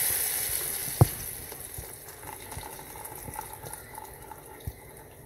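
Egg and chana dal batter poured into hot ghee in a saucepan, sizzling loudly at first and dying down to a faint hiss. A single sharp knock about a second in.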